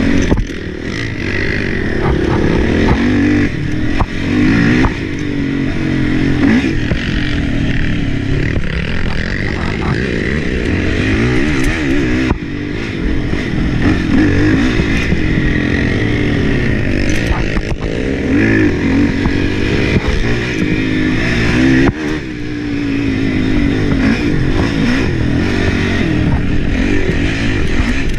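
Racing ATV's engine running hard under constant throttle changes, its pitch rising and falling as it accelerates and backs off over rough dirt trail, with the clatter of the machine over bumps. The engine note drops briefly a couple of times.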